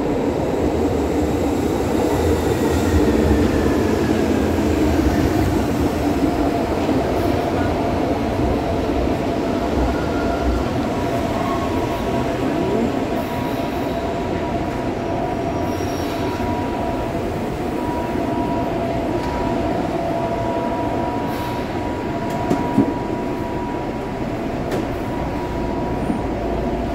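Brasília Metro electric train running, a steady rumble of wheels on rails with a steady high whine over it.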